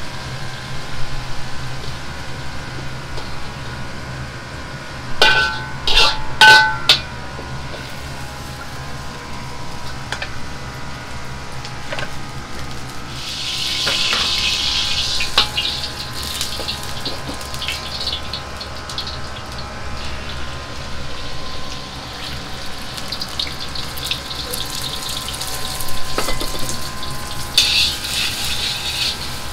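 Wok station in a restaurant kitchen: a high gas burner runs steadily, with metal clanks and a ringing tone about five to seven seconds in. The hot oiled wok hisses for a couple of seconds around the middle. Near the end, beaten eggs sizzle loudly as they hit the hot oil.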